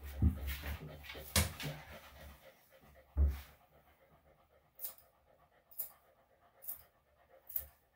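A senior Bichon/Shih-Tzu dog panting, with short breaths about once a second in the second half. A few dull bumps and knocks come in the first three seconds, the loudest about three seconds in.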